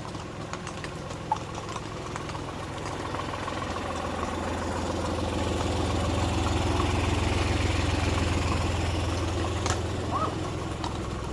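A vehicle's engine running with a steady low hum, growing louder toward the middle and fading toward the end as it passes.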